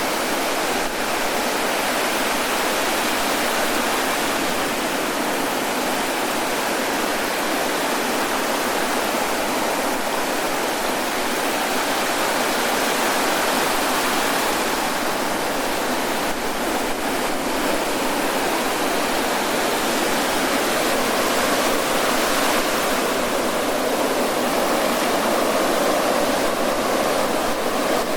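Ocean surf washing ashore on a beach: a steady, continuous rush of breaking waves that swells slightly now and then.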